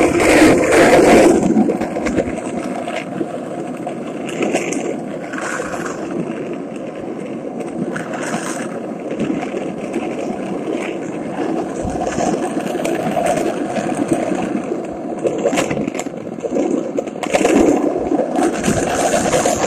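Skateboard wheels rolling on asphalt: a steady rumble, louder in the first second or so and again near the end, with a few brief clicks.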